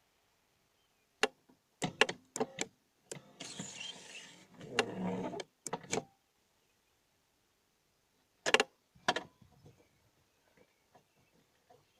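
Several sharp clicks and knocks, with a whirring mechanical noise of about three seconds in the middle, then two more clicks.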